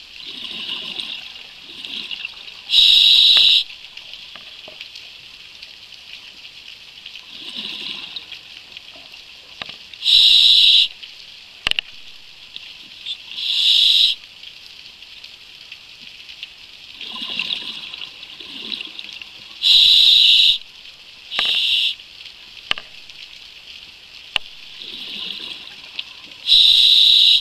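Scuba diver breathing through a regulator underwater: a steady hiss with softer hissing swells, and five louder bursts of exhaled bubbles, each under a second long, every several seconds.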